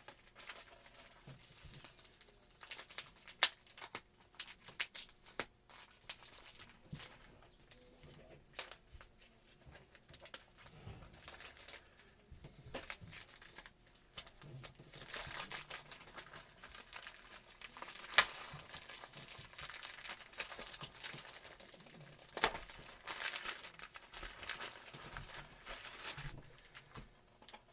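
Tightly wrapped mail package being torn and crinkled open by hand: irregular crackling and tearing with occasional sharp snaps, busiest in the second half.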